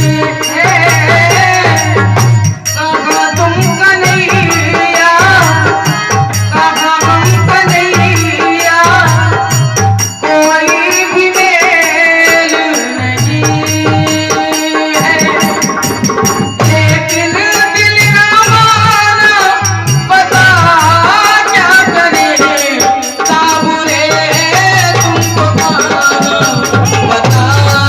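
Hindi devotional bhajan music: a wavering melody line over a steady percussion beat.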